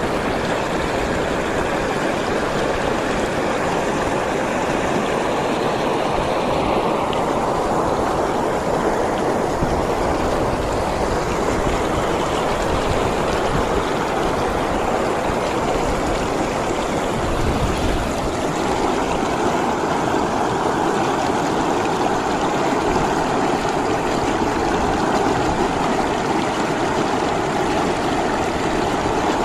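A river or stream running over rocks, a steady rushing babble of water. Its tone changes a little about two-thirds of the way through.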